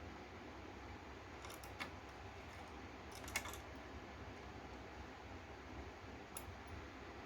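A few light clicks and taps of small hard parts being handled, in small clusters, the loudest about three seconds in, over a steady low hiss.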